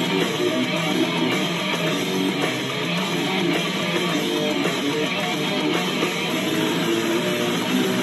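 Hockey goal song: rock music driven by strummed electric guitar over bass, steady and loud.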